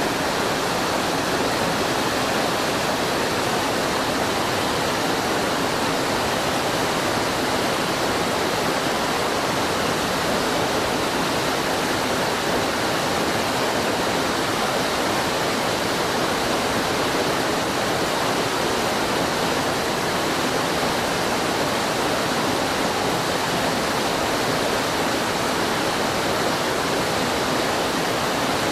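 Small waterfall on a steep boulder creek, white water pouring over rock close to the microphone: a loud, steady rushing that doesn't change.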